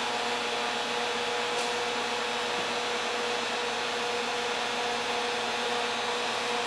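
Home-built 10 kW resonant-lock induction heater running steadily under load, heating an iron billet past 2100°F: an even whirring hum with a faint steady tone.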